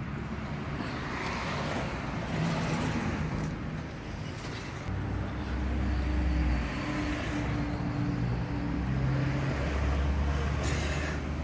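Road traffic: a steady hum of motor vehicles, with the low rumble of engines swelling twice, about halfway through and again near the end.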